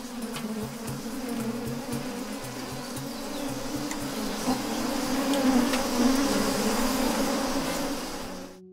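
Dense buzzing of a crowded honeybee colony on the comb: a steady hum that swells and then fades out just before the end.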